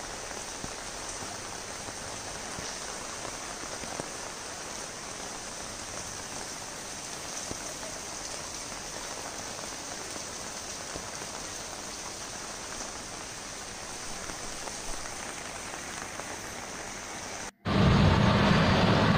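Steady rain falling on a flooded street, an even hiss. Near the end it cuts suddenly to the louder, deeper rumble of a car cabin driving through the rain.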